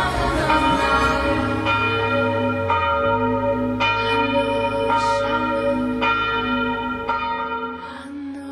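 Church bells ringing, struck about once a second, each stroke leaving a long ringing hum, over a low drone that fades out near the end.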